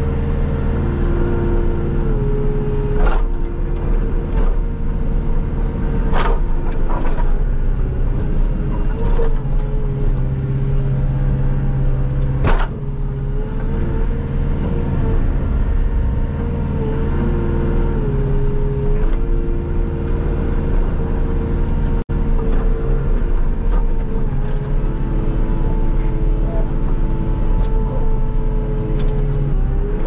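Skid steer's diesel engine running under load while it pushes snow, with a steady whine that steps up and down in pitch as the machine works. A few sharp knocks from the snow pusher come through along the way, the loudest about twelve seconds in.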